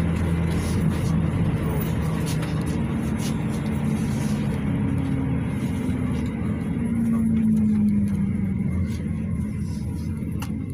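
GAZelle Next minibus engine running under way with tyre and road noise, heard inside the passenger cabin. Its note rises through the middle and eases off near the end as the bus slows.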